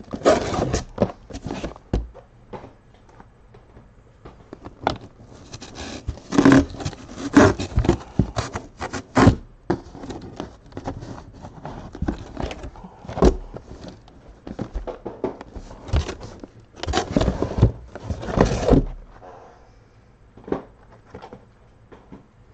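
Shrink-wrapped trading card hobby boxes being shifted and lifted inside a cardboard case: irregular scraping and knocking of boxes against each other and the cardboard, in bursts, easing off near the end.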